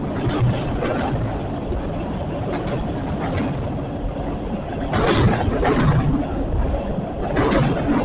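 Train cars rolling past on the track with a steady rumble and repeated clicks of the wheels over rail joints.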